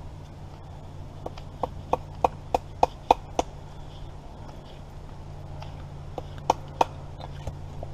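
Wooden mallet knocking on wood: a quick run of about eight sharp knocks, roughly three a second and growing louder, then two more a few seconds later.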